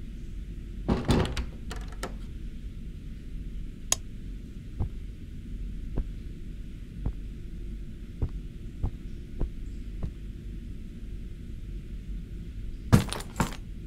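A door opening with a cluster of clicks and rustle, then a series of soft thuds about a second apart, and a louder burst of rustling near the end, all over a steady low hum.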